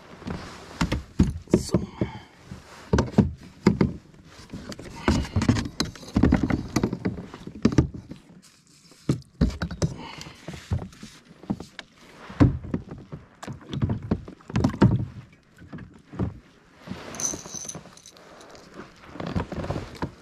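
Irregular knocks, thumps and splashes of a landing net and snagged lures being worked in the water and against the side of a plastic fishing kayak.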